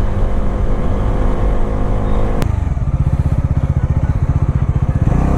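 Bajaj Dominar 400's single-cylinder engine running, with a sharp click about halfway through, after which it settles into a steady, pulsing idle.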